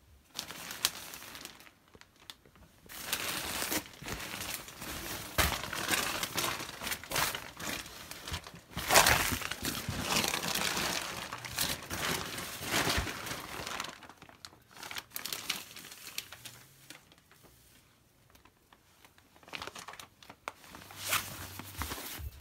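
Sleeping bag and tent fabric rustling and crinkling as someone moves about inside a small pop-up tent, in irregular bouts, loudest about nine seconds in and thinning to occasional short rustles in the second half.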